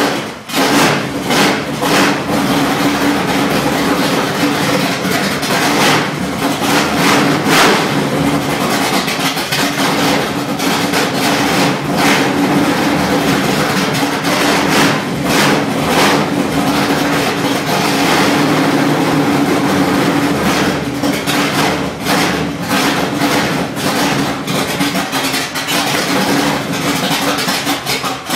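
Chevrolet ZZ502 big-block V8, built to 11.2:1 compression, running loud on its first start-up, its sound swelling and falling again and again over a steady running note.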